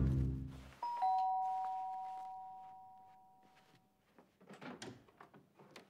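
Two-tone doorbell chime: a high ding and a lower dong a fraction of a second apart, both ringing out and fading over about three seconds. Orchestral brass music ends just before it, and soft bare-foot footfalls and rustles follow near the end.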